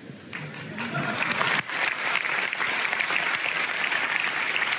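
Large audience applauding, the clapping building up about a second in and then going on steadily.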